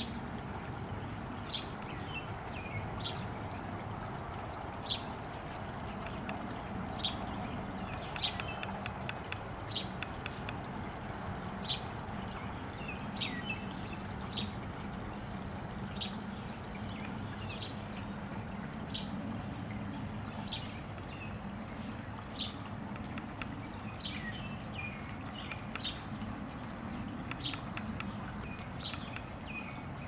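Small songbirds chirping repeatedly, short high chirps about once a second, over a steady rush of running water.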